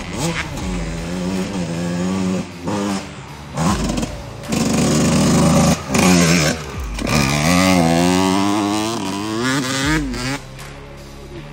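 Dirt bike engine revving hard again and again, its pitch climbing and dropping with each throttle blip, broken off abruptly several times.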